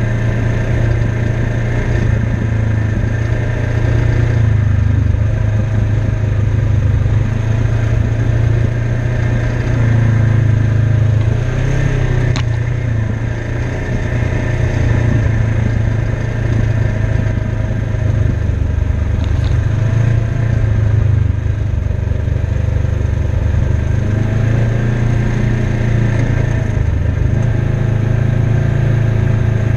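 Engine of a 2016 Polaris RZR XP 1000 side-by-side, a 1000 cc parallel twin, running at low trail speed and heard from on board, its pitch rising and easing a little as it moves along. A single sharp click comes about twelve seconds in.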